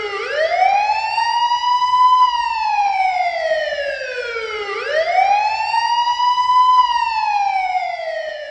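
Police siren wailing: its pitch climbs over about two seconds and then sinks slowly, twice, and it fades away near the end.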